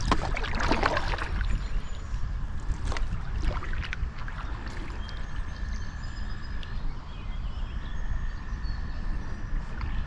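River sounds heard from a canoe: water splashing and lapping at the paddle and hull, loudest in the first second and again around three seconds in, with a few short high bird calls. A steady high tone runs underneath, dropping out for a moment about seven seconds in.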